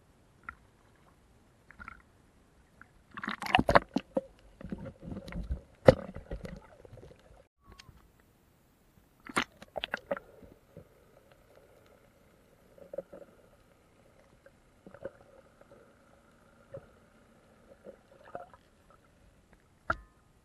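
Sea water splashing and gurgling around a freediver's camera as it breaks the surface and goes under, with loud irregular splashes in the first half. A faint steady hum follows while it is underwater.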